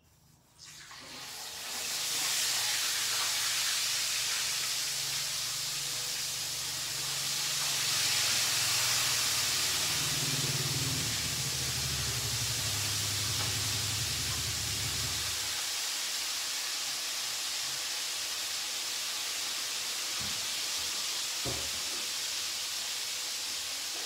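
Fish frying in hot oil in a wok: a loud, steady sizzle that starts suddenly as the fish goes into the oil. A low hum runs underneath and stops partway through, and there are a couple of light knocks near the end.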